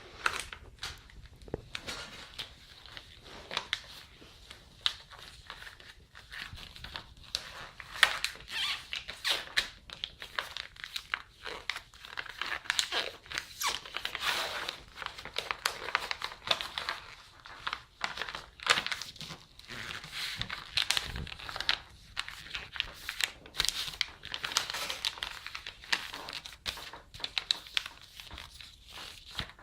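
Crinkling and crumpling of something being handled close by, with many sharp clicks scattered through it, busiest through the middle.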